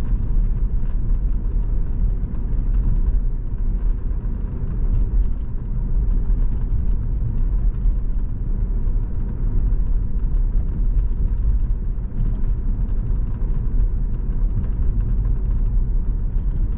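Cabin noise inside a 2004 Saab 9-5 Aero cruising at about 30 mph without accelerating: a steady low rumble of road and engine noise, before any sound deadening has been fitted.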